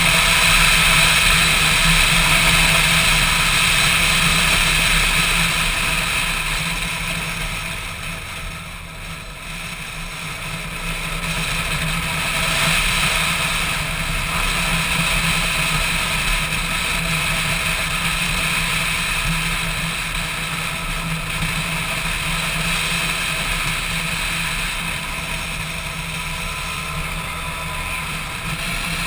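Motorcycle engine running under way at road speed, heard from the rider's own bike, with a steady rush of wind. The sound drops for a couple of seconds about nine seconds in, then picks up again.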